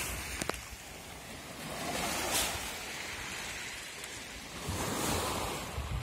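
Small Black Sea waves washing on the shore, swelling twice, about two and five seconds in, with a low rumble of wind on the microphone.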